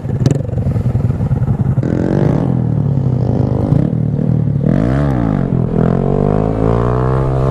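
Honda Grom's 125 cc single-cylinder engine running unevenly, then pulling away with its pitch rising. About five seconds in it revs quickly up and back down, then climbs again as the bike accelerates.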